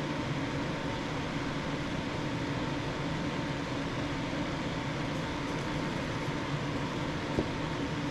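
Steady mechanical hum and hiss like a running fan, with a faint steady high tone over it and a small click near the end.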